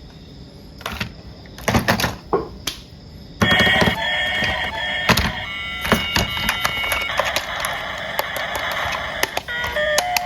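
A few sharp plastic clicks and knocks, then, a little over three seconds in, a battery-powered toy starts playing a steady electronic beeping tune.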